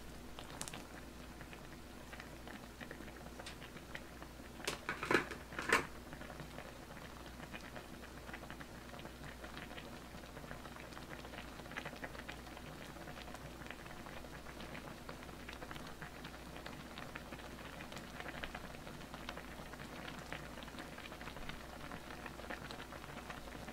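Instant tteokbokki simmering in a pot: faint, steady bubbling and popping of the sauce, with a few louder knocks about five seconds in.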